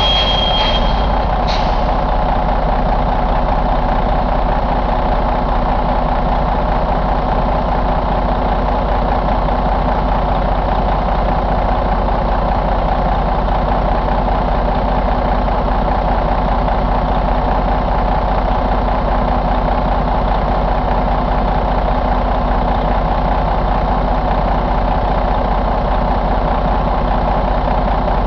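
Detroit DD13 inline-six diesel engine idling steadily just after starting, with a brief high tone in the first second.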